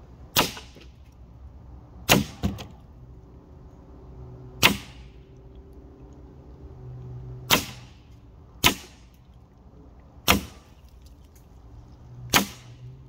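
AEA HP SS Plus .25 calibre semi-automatic PCP air pistol firing a magazine of pellets: a string of sharp shots about one to three seconds apart, two of them close together about two seconds in.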